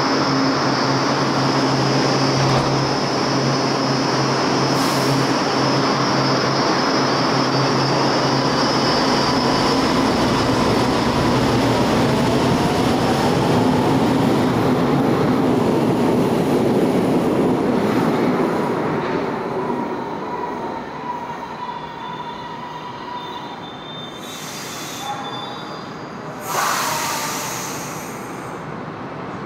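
Milan Metro Line 1 train pulling out of the station: loud running noise with a steady electrical hum and whine, which fades about two-thirds of the way through as the train leaves, with thin squealing tones from the wheels on the rails. A sudden loud rush of noise comes near the end.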